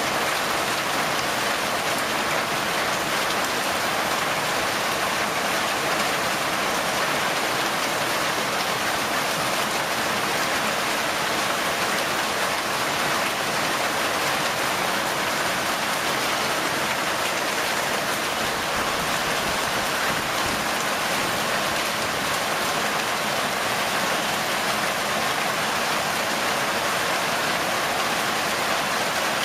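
Heavy hail mixed with rain pelting down on the ground, plants and cars, a steady, dense hiss of countless small impacts.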